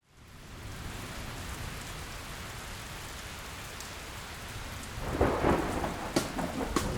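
Steady rain fading in, with a rumble of thunder swelling about five seconds in and a few sharp hits near the end.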